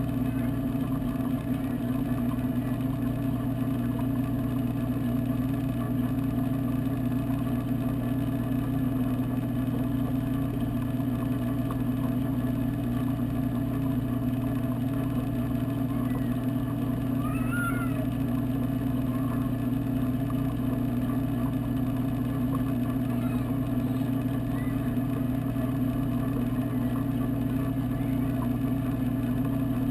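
Steady low hum of saltwater aquarium pumps, picked up underwater by a camera inside the tank.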